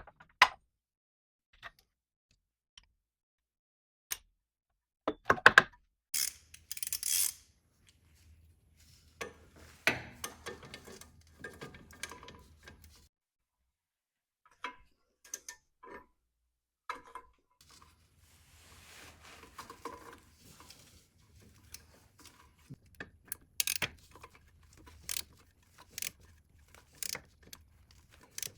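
Hand ratchet with a 15 mm socket clicking in short runs on a control arm bolt, with scattered metallic clanks and knocks of the tools against the frame. The bolt keeps turning without breaking loose because the nut on its back side spins freely.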